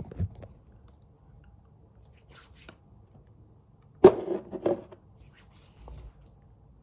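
Handling noise in a small room: a knock near the start, soft rubbing, then a loud sharp knock about four seconds in followed by a brief clatter and rustle.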